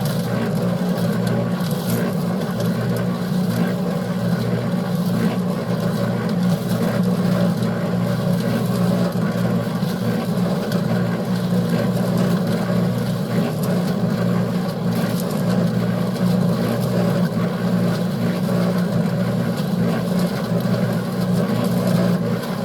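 Concrete mixer running steadily, its drum turning a batch of concrete being mixed with a little extra water toward the right consistency.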